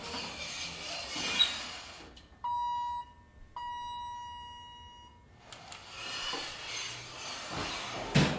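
Older elevator: a sliding, rushing noise of the doors moving, then two chime dings of the same pitch about a second apart, the second one ringing longer. The sliding noise returns and ends in a sharp thump near the end as the doors close.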